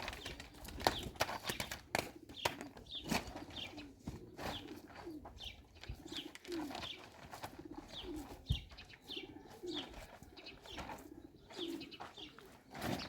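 Pigeons or doves cooing over and over, with short higher bird chirps and scattered sharp knocks and clicks.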